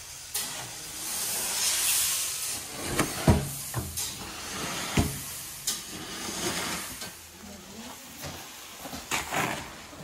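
Loose wheat grain hissing and rustling as it is scraped and pushed across a heap with a long-handled scraper, with a few sharp knocks from the tool, the loudest about three and five seconds in.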